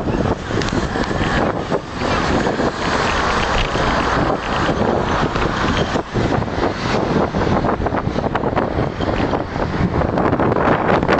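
Wind buffeting the microphone of a camera riding on a moving bicycle, a constant rushing flutter with street traffic mixed in underneath.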